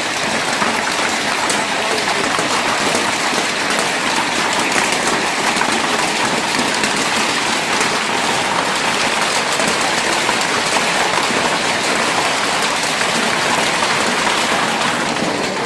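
Heavy fall of large hailstones hitting flat garage roofs and the ground. It is a dense, steady clatter of countless impacts that blends into a continuous rush.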